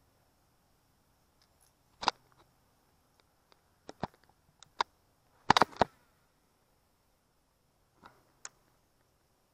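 Irregular sharp clicks and knocks of small hard objects. There is one about two seconds in, a few more around four to five seconds, a quick cluster of four or five a little past halfway, and two fainter ones near the end.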